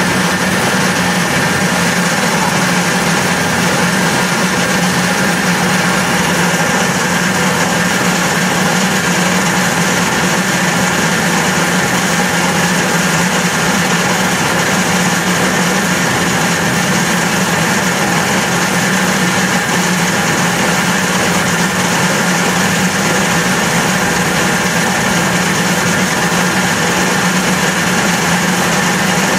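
6LN-120 rice huller and milling machine running steadily while milling rice: a loud, even machine noise with a steady hum.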